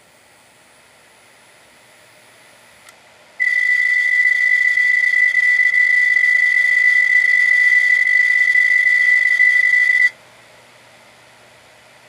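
Seagate Barracuda 7200.10 750GB SATA hard drive with a failed head, letting out a loud, steady, high-pitched squeal for about seven seconds that starts abruptly a few seconds in, just after a faint click, and cuts off suddenly. It is the sound of the damaged head riding the platter.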